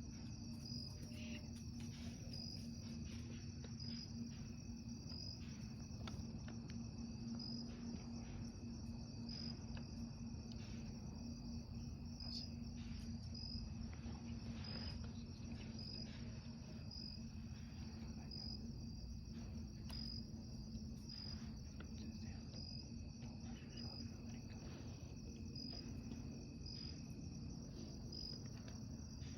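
Faint, steady outdoor night insect chorus: a continuous high chirring with a regular pulse about every second and a half, over a low steady hum.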